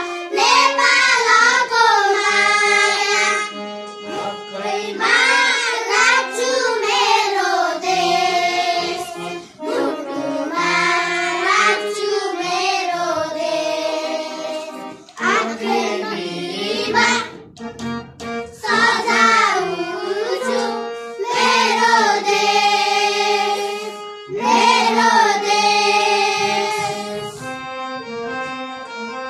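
A small group of young schoolchildren singing a song together in unison, in phrases separated by short breaths. Near the end the singing stops and an instrumental passage of short, evenly spaced notes begins.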